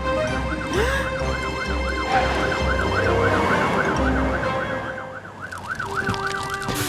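Cartoon fire-truck siren wailing quickly up and down, several sweeps a second. Under it for the first four seconds is the pulsing low rumble of the cartoon trucks' engines brumming.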